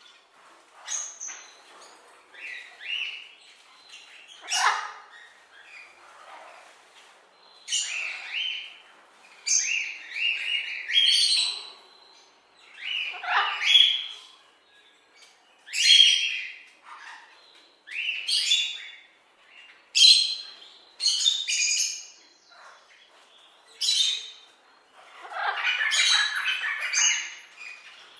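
Parrots and parakeets squawking and chirping in a run of short, irregular calls, one every second or two. The calls crowd together and overlap for a couple of seconds near the end.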